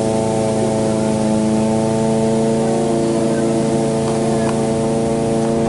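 A steady mechanical drone from a motor or engine running at constant speed: a low hum with several even overtones that does not change in pitch or level.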